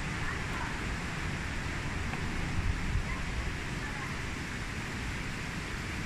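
Steady rushing of water from the gorge's river below, an even hiss with a low rumble underneath.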